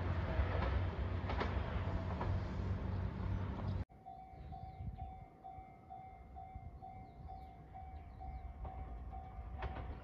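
Japanese level-crossing warning bell: an electronic ding repeating about twice a second. It starts after a sudden cut about four seconds in, before which there is a steady low rumble with a deep hum.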